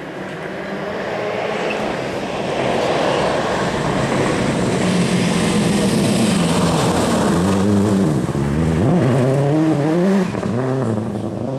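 Toyota Corolla rally car approaching at speed on a gravel stage and passing close by, loudest around the middle. In the second half its engine revs rise and fall several times as it accelerates, with loose gravel spraying from the tyres.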